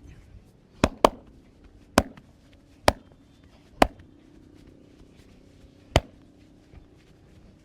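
Sharp, loud cracks from a masseur's hands working on the body: six in all, two in quick succession about a second in, then the rest spaced about a second apart.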